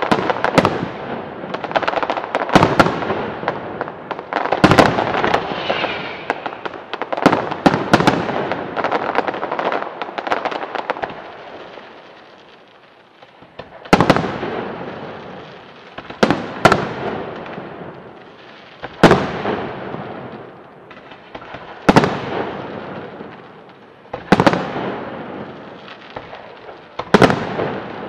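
Aerial firework shells bursting. For the first ten seconds or so the bangs come thick and fast with crackling between them. After a short lull, single loud bangs follow every two to three seconds, each dying away.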